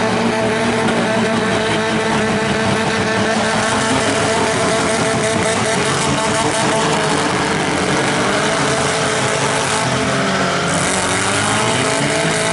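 Several compact derby cars' engines running hard at once, their pitches rising and falling as the drivers rev up and back off.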